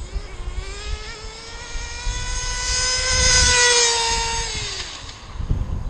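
Kyosho FW-05 nitro RC car's glow engine at full throttle, its high pitch rising over the first couple of seconds, holding, then dropping away about four and a half seconds in. The engine is set to run a little rich.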